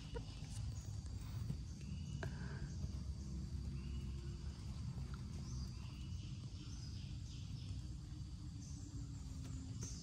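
Quiet forest ambience: a low steady rumble with a few short, faint high chirps scattered through it.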